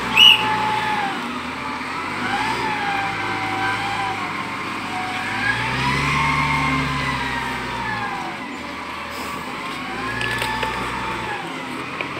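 Wheel loader's diesel engine running and revving up and easing off again about three times as the machine manoeuvres. A brief, loud, high-pitched sound just after the start is the loudest moment.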